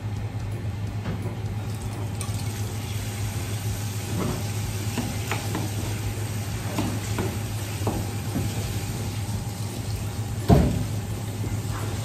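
Knife work on small horse mackerel on a cutting board: a scatter of short knocks and wet handling noise over a steady hum, with one louder thump near the end.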